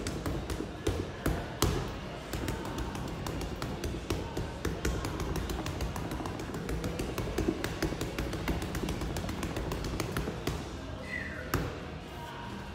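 Boxing gloves striking a Century heavy punching bag in quick, irregular punches, several a second at times. Music plays underneath.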